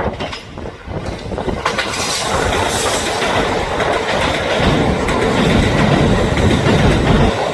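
Kintetsu electric train passing close by: the rumble and rush of its wheels on the rails come in about two seconds in and grow louder.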